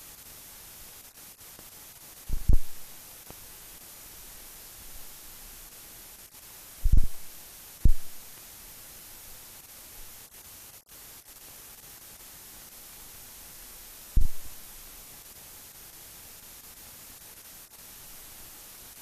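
Steady hiss of a soundtrack with no recorded sound, broken by four short, low thumps: one about two seconds in, two close together around seven to eight seconds, and one near fourteen seconds.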